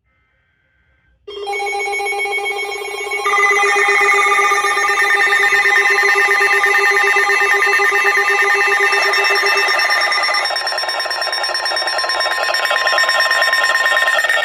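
Weather radio alert alarms sounding for a severe thunderstorm warning: loud layered electronic tones at several pitches, some steady and some rapidly pulsing, starting about a second in, with more tones joining about two seconds later.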